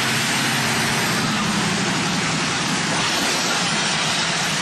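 A car being driven: steady engine and road noise.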